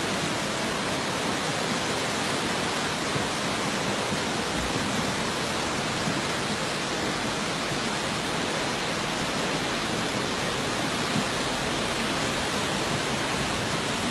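Fast-flowing floodwater rushing steadily, an even, unbroken noise with no letup.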